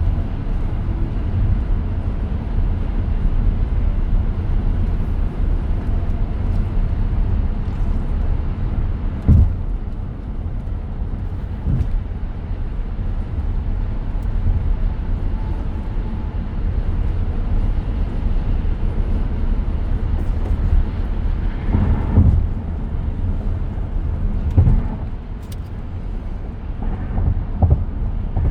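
Steady low road and tyre rumble inside the cabin of a 2023 Tesla Model X on the move, with no engine sound from the electric drive. A few short thumps come through now and then, the loudest about a third of the way in and again after three quarters.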